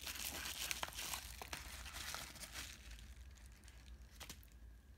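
Yellow padded paper mailer being torn and crinkled open by hand: papery rustling and crackling, dying down after about three seconds to a few faint clicks.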